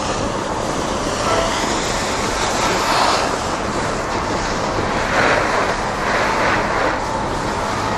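Snowboard sliding down groomed snow: a steady scraping hiss of the board's base and edges, with wind rushing over the microphone from the ride. The scrape swells about three seconds in and again around five to six seconds, as the board turns on its edge.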